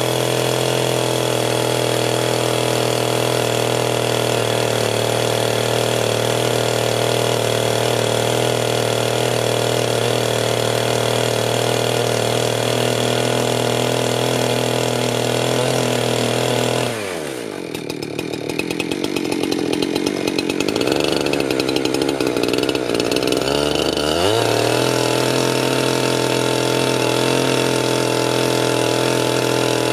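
Chainsaw running at a steady high speed, cutting wood. About 17 seconds in, its pitch drops sharply, then climbs back up about seven seconds later and runs steady again.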